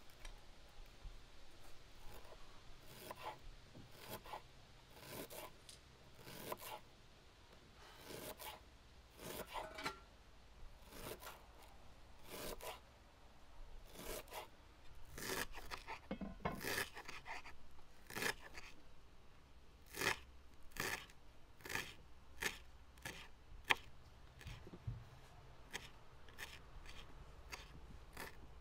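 Kitchen knife chopping fresh dill on a wooden cutting board: a run of short cuts through the herb, each with a light knock of the blade on the board, coming more often in the second half.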